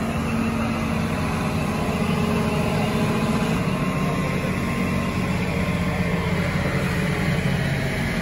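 Heavy construction machinery engine running steadily at idle, a continuous low hum.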